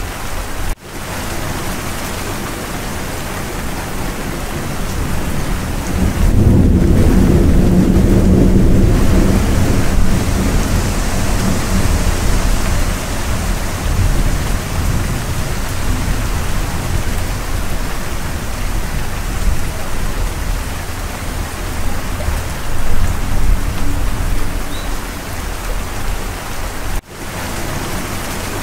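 Steady heavy rain with a low rumble of thunder about six seconds in that lasts several seconds. The sound cuts out for an instant just under a second in and again near the end.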